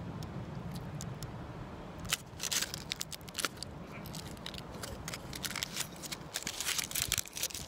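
Gold foil wrapper of a Ferrero Rocher chocolate crinkling and crackling as it is unwrapped by hand. It comes in two spells of crackling, starting about two seconds in and again about six seconds in, over a steady low rumble.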